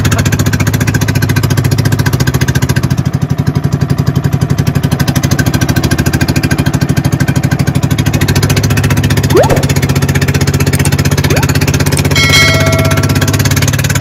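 Small pump-boat engine running steadily, with rapid even firing pulses. A short rising squeak comes about nine seconds in, and a brief higher tone with overtones comes near the end.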